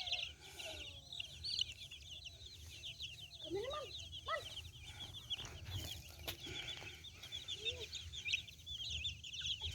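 A brood of domestic chicks peeping continuously in a rapid, high-pitched chatter, with a hen clucking a few times lower down, about three and a half seconds in and again near eight seconds.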